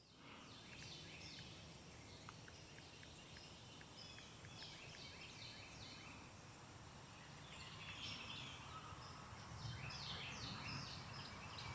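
Faint outdoor ambience with birds chirping: many short, quick, repeated chirps throughout, over a steady high-pitched tone and low background hum.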